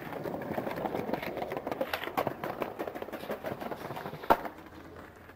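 Skateboard wheels rolling over concrete paving slabs, clicking over the joints between slabs, with one sharp clack of the board about four seconds in; the rolling then fades.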